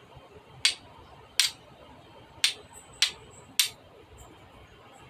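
Steel striker struck down a flint five times, each strike a short, sharp scrape, to throw sparks onto char cloth.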